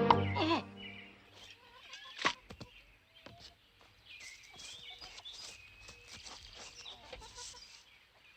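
A music cue dies away in the first second, then farmyard bird calls, chickens among them, with a sharp knock a little over two seconds in.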